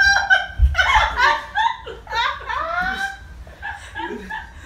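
Women laughing hard, in high-pitched bursts that fade over the last second or so, with a low thump about half a second in.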